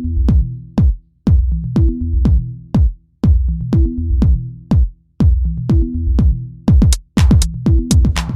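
Electronic music with a drum-machine beat and a repeating bass line; the percussion gets busier near the end.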